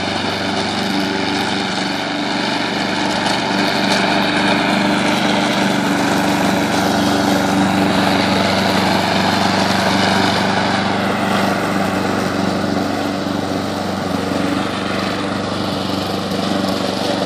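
Walk-behind rotary lawn mower's small gasoline engine running steadily as it is pushed across grass.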